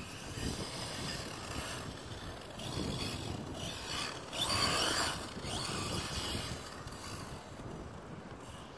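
Redcat Blackout XTE RC monster truck driving across grass: the electric drivetrain's whirring and gear noise mixed with tyre rustle. It swells to its loudest about halfway through, then fades as the truck moves off.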